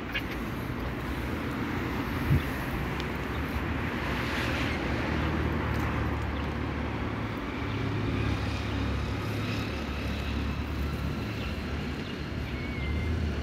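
Steady rumble of city road traffic, swelling briefly about four seconds in as a vehicle passes, with one short sharp knock about two seconds in.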